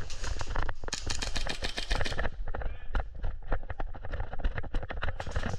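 Airsoft gunfire: a dense, rapid volley of sharp cracks about a second in, then a steady run of single sharp cracks about five a second.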